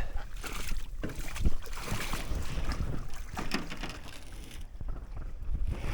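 Canoe moving down a creek, with water sloshing around the hull and a few dull knocks, and wind buffeting the microphone.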